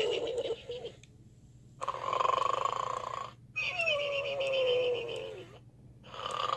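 Gund Arnold the Snoring Pig plush toy playing its snoring sound: a noisy snore in, then a long whistling breath out that slides down in pitch, with brief pauses between breaths.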